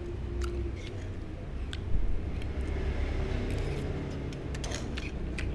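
Metal spoon and fork clinking and scraping against a ceramic plate of rice, a scattering of light clicks, with a heavier knock about two seconds in, over a steady low rumble.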